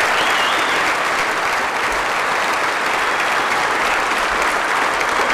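A large seated audience applauding steadily.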